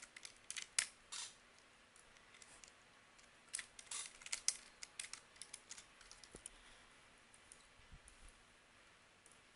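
Computer keyboard typing, with quick key clicks in two short bursts, one at the start and one about four seconds in, then a few scattered keystrokes.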